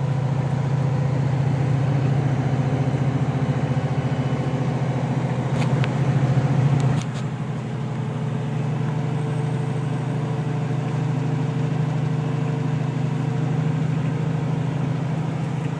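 Steady low hum of a Kenworth semi truck's diesel engine heard from inside the cab, with a couple of faint clicks about six seconds in. The level drops suddenly about seven seconds in, and the engine hum carries on more quietly.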